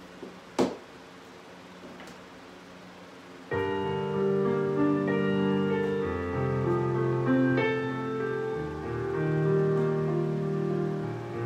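Faint steady room hum with one sharp click about half a second in; then piano music starts abruptly about three and a half seconds in and plays on.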